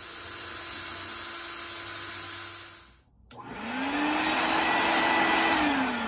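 Electric drill with a 1/16 inch bit running at a steady whir for about three seconds while drilling through the roadbed. Then, after a short break, a vacuum cleaner's motor spins up, runs steadily and starts to wind down near the end, sucking up the drilling debris.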